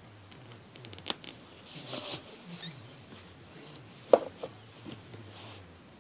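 Small handling noises from nail painting: scattered taps, clicks and rustles of a nail polish bottle and hands on a plastic bin lid, with one sharp knock about four seconds in.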